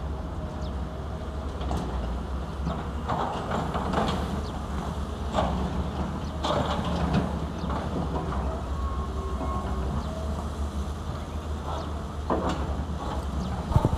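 Caterpillar 320 hydraulic excavator's diesel engine running with a steady low drone as the machine swings and lifts its boom, with several metal clanks along the way.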